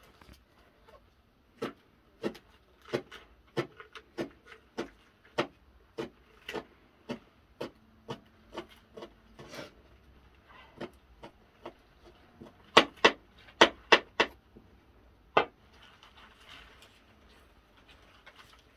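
Stems of fresh leafy greens snapping crisply as they are broken by hand, one after another about once or twice a second, with a quick run of louder snaps about two thirds through. Leaves rustle faintly between the snaps.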